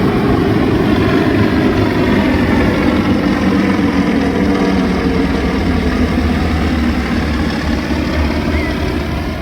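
Formation of air show aircraft flying overhead during a practice run: a loud, steady engine drone with a low hum and pitched overtones.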